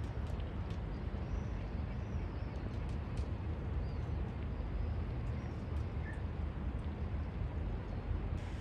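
Steady low rumble of outdoor harbour ambience, with a few faint high bird chirps in the first half.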